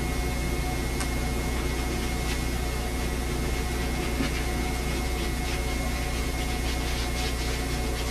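Steady hiss with a constant low hum: the background noise of an old VHS camcorder recording in a small room.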